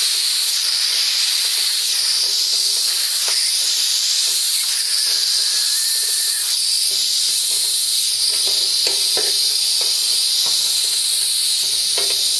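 Compressed air hissing steadily out of the open brass drain valve at the bottom of a 20-gallon air compressor tank, blowing condensed water out of the tank. A few light clicks come in the second half as the valve is handled.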